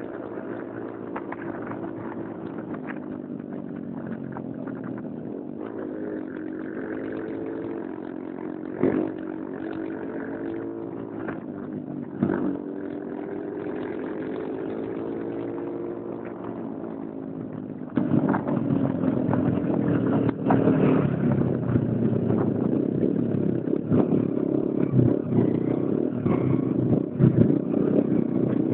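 Small motorcycle engine running under way, its pitch rising and falling with the throttle, with two short knocks in the first half. About two-thirds of the way through it suddenly becomes louder and rougher.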